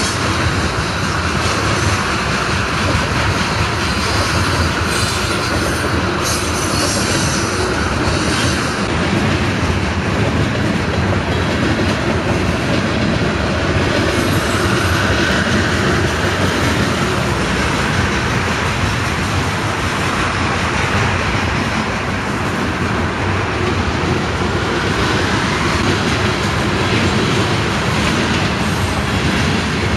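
Freight train of tank cars rolling past, its steel wheels rumbling steadily on the rails.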